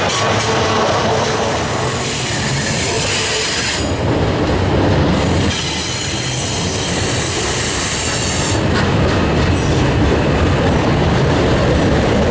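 Freight cars rolling past at close range, steel wheels rumbling and clicking over the rails, with a high wheel squeal on the curve that comes and goes twice.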